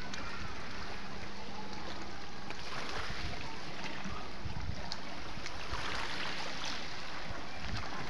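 Small sea waves lapping and washing among shallow shoreline rocks: a steady rush of water that swells briefly about three seconds in and again around six seconds.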